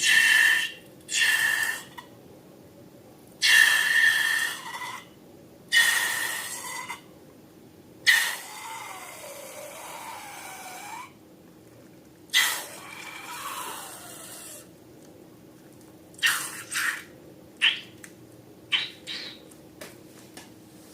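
Wet, sticky squelching of slime being squeezed and worked, in a series of separate bursts of about a second each, with a drawn-out rubbery squeak in the middle, then shorter clicks and pops near the end.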